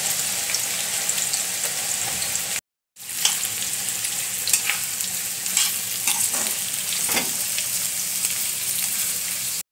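Sliced onions sizzling in hot oil in a kadhai. The sound drops out briefly about two and a half seconds in. After that, a metal spatula scrapes and clicks against the pan as the onions are stirred.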